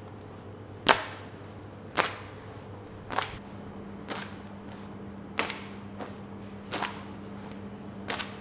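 A series of seven sharp knocks, roughly one every second or so, the first the loudest, over a steady low hum.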